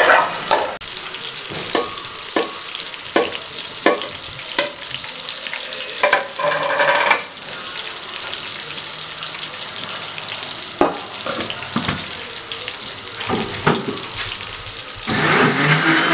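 Ghee heating in an aluminium pot, a steady sizzle, broken by a dozen or so short knocks and clinks. About a second before the end an electric kitchen blender starts running.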